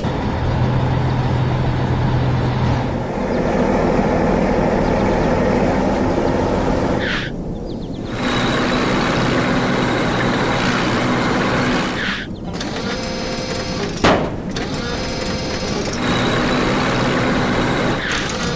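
Cartoon sound effects of construction vehicles: engine noise that changes abruptly several times, with a sharp bang about fourteen seconds in.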